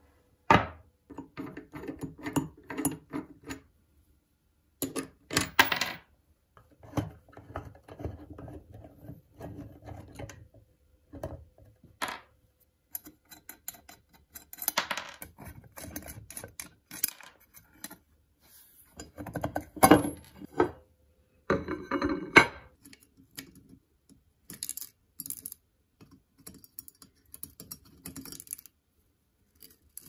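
Hand work with small metal parts: a long run of separate clinks, clicks and light knocks, with short scrapes and brief silences between them. The two loudest knocks fall about two-thirds of the way through.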